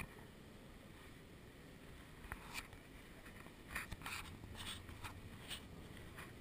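Quiet room tone: a low steady rumble with a scattering of soft clicks and rustles.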